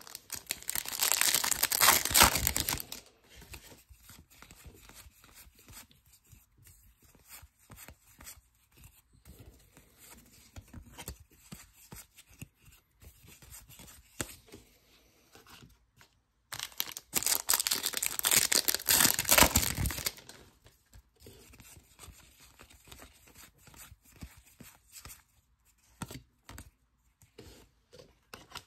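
Trading card pack wrappers being torn open twice, about half a minute apart, each a loud rip lasting two to three seconds. Between the tears, faint rustling and clicks of cards being handled.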